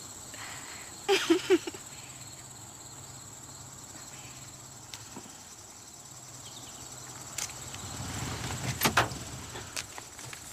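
Crickets chirring steadily. Toward the end a car pulls up and its door opens, with a few sharp clicks and a clunk.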